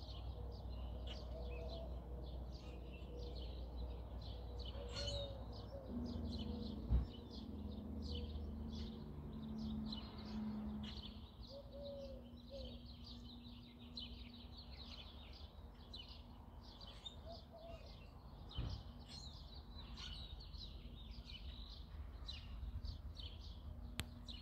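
Many small birds chirping and twittering all through, a morning bird chorus, over a faint low rumble. A steady low hum comes in about six seconds in, and there is a sharp knock a second later and a softer one later on.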